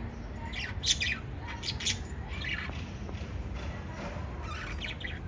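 Pet lovebirds giving short, high-pitched chirps and squawks in small clusters: the loudest about a second in, more just before two seconds and at about two and a half, and another cluster near the end, over a steady low hum.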